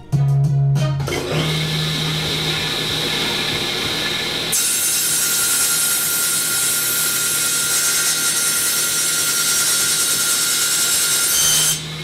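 Table saw running, then from about four and a half seconds ripping through a reclaimed pallet-wood board for about seven seconds. The cut stops just before the end.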